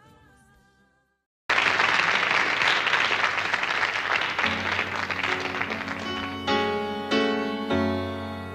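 The end of one song fades out, followed by a moment of silence. A recorded audience then breaks into applause, and a piano intro starts under the clapping a few seconds later, with struck chords from near the end.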